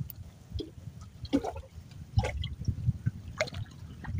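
Water splashing and dripping in short, irregular bursts over a low rumble.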